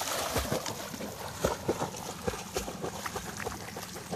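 A dog plunging into a creek and swimming: splashing as it enters the water, then irregular small splashes and sloshing from its paddling strokes, gradually getting quieter.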